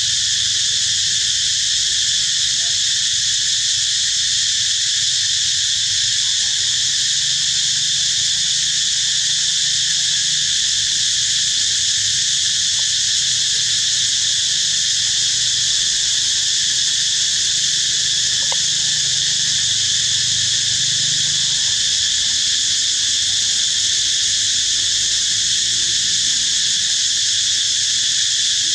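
Loud, steady insect chorus: a continuous high-pitched drone of many insects, unchanging throughout.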